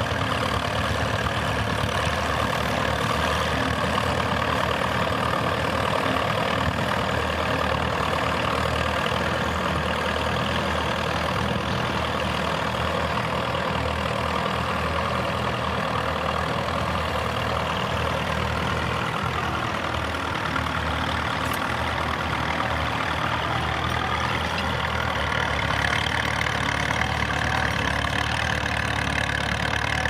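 Vintage tractor engine running steadily at an even, low pitch.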